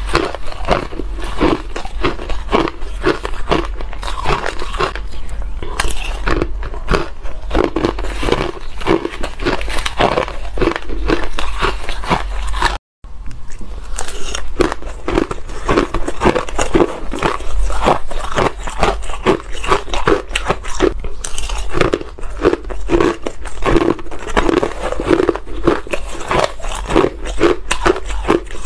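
Close-miked mouth crunching and chewing of ice, first spoonfuls of shaved ice, then shaved ice with ice cubes, in dense rapid crunches. The sound drops out briefly about halfway through. A low steady hum runs underneath.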